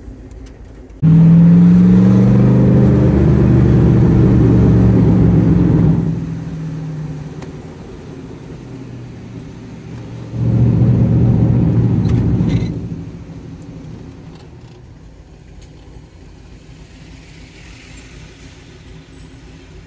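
Turbocharged IROC Camaro engine heard from inside the cabin, pulling hard under heavy throttle for about five seconds from a second in, then easing off. A second, shorter hard pull comes about ten seconds in, then the engine settles to a quieter cruise.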